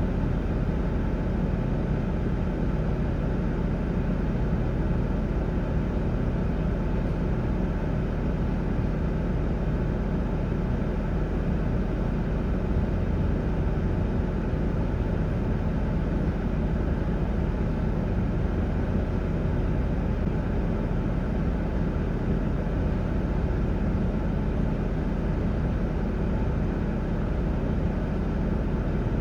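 Steady engine rumble of a running motor vehicle, even and unchanging throughout.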